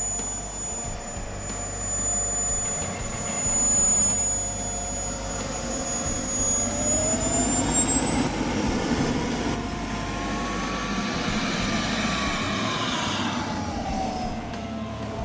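RC model jet's turbine engine whining over a rush of exhaust noise. The whine holds steady, climbs in pitch from about halfway through, then falls back near the end.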